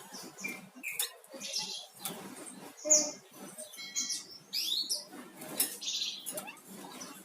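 A flamboyan songbird singing busily: a quick string of varied short chirps and sweeping whistled notes, with a sharp high note about three seconds in.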